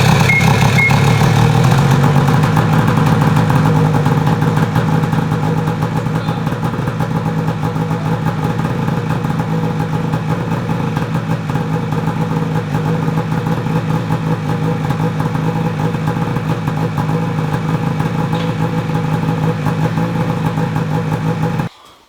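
The freshly rebuilt 800 H.O. two-stroke twin of a 2004 Ski-Doo Rev snowmobile running on one of its first starts. It idles fast at first, settles to a steady idle within a few seconds, then is shut off suddenly near the end.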